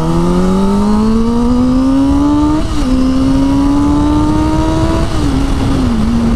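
Motorcycle engine pulling away under throttle. Its note climbs, drops sharply at an upshift a little under three seconds in, and climbs again. About five seconds in it falls back in steps as the throttle eases, all over a steady rush of wind and road noise.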